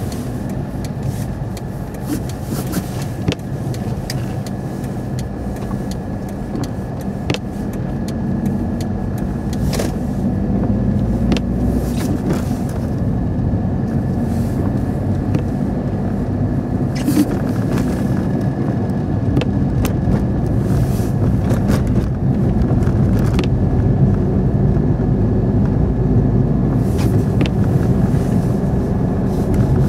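Car driving on a snow-covered road, heard from inside the cabin: a steady engine and tyre rumble with scattered short clicks and knocks, getting a little louder about a third of the way in.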